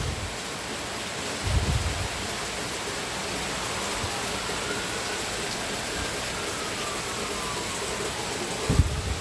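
Steady heavy rain, an even hiss. Midway a faint siren rises and falls, and two short low rumbles come about a second and a half in and near the end.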